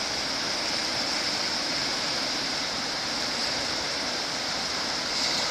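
Fast river water rushing steadily through a stretch of white water.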